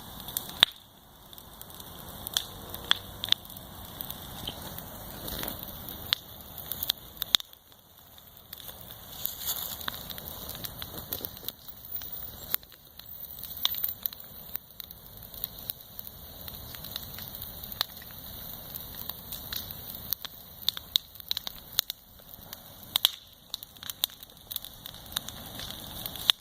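Bonfire burning: irregular sharp crackles and pops over a steady rush of flames.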